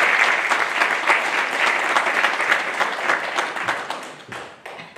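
Audience applauding, the dense clapping thinning out gradually and ending in a few scattered last claps near the end.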